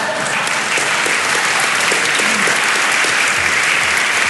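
Theatre audience applauding, a dense steady clapping that holds at one level.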